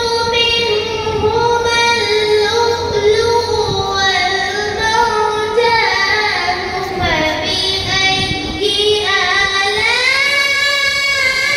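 A boy's voice chanting Quran recitation (tilawat) in long, drawn-out melodic phrases with ornamented turns, the pitch climbing to a higher held line near the end.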